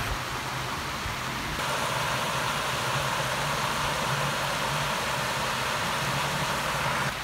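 Steady rushing of water flowing along a concrete canal, an even hiss that swells slightly a little over a second in.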